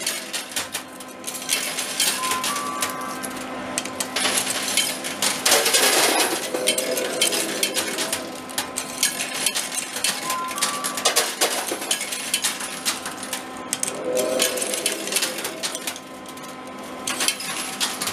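Coin pusher arcade machine: coins clinking and clattering as they drop in and slide across the metal playfield, steady clicks throughout. Short electronic beeps sound twice, and a steady hum runs underneath.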